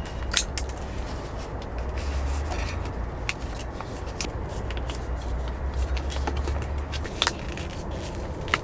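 Scissors snipping open a plastic soup pouch, then the pouch crinkling and rustling as thick potato cheese soup is squeezed out into a titanium mug. Scattered small clicks, the sharpest about half a second in, over a low steady rumble.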